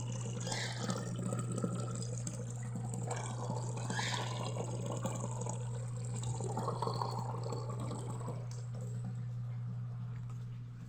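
Consul 12 kg washing machine draining its soapy wash water, with a steady low hum under the sound of water running and splashing out. The hum drops away at the very end.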